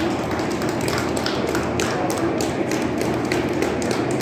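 Many light, irregular taps and clicks over a steady background hum.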